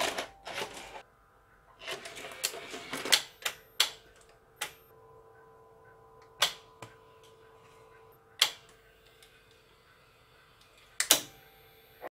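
Victor BR-8600 VHS editing deck taking in a cassette: the tape is pushed into the front-loading slot and drawn in with a clatter. This is followed by a string of sharp separate clicks from the front-panel buttons and the tape-threading mechanism, over a faint steady hum.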